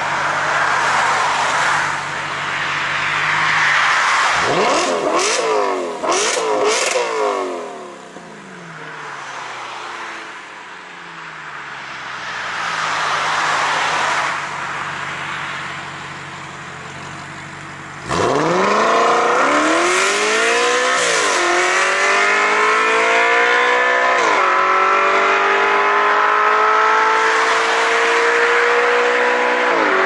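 Audi RS5 B8's 4.2-litre V8 through an Armytrix aftermarket exhaust: a few quick revs while stationary about five seconds in. Then, about eighteen seconds in, it pulls away hard, the pitch climbing and dropping back at each upshift.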